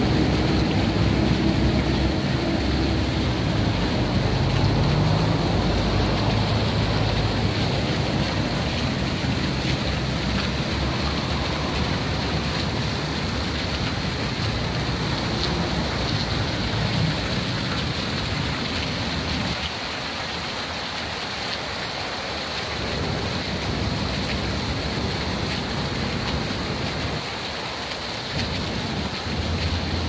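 Fountain water jets falling and splashing into a pool: a steady, rain-like hiss of water. A low hum underneath fades away over the first several seconds.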